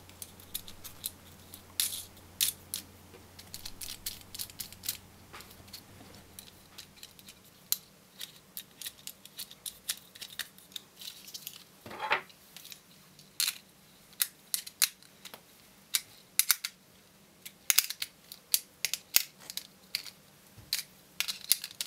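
Irregular small clicks and taps of a synth module's circuit-board front panel being worked down over its jacks, switch and potentiometer shafts, parts knocking lightly against the panel and board.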